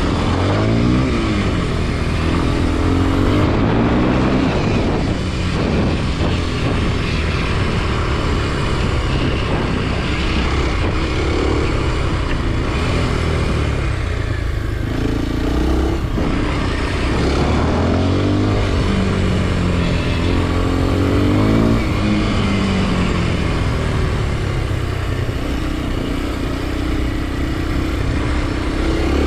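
Kawasaki KLX 230 SM's single-cylinder engine revving up and dropping back again and again as the motorcycle is ridden, its pitch rising and falling with each throttle change and shift.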